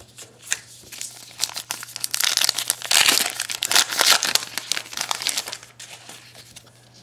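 A 2012 Topps Heritage baseball card pack's wrapper being torn open and crinkled by hand. It makes a dense crackle that builds about a second in, is loudest through the middle and dies away before the end.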